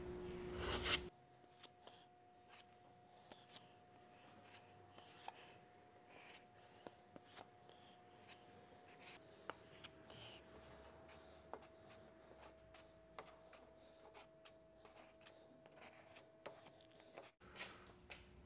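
Faint scraping and scattered small clicks of a plastic spreader drawing polyester glazing putty across body filler on a truck hood. The scrape is strongest in the first second, then thins to light ticks.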